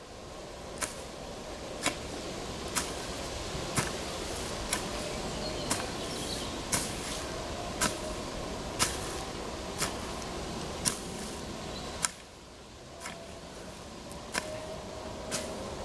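Sharp clicks about once a second over a steady hiss, with faint wavering tones in the background.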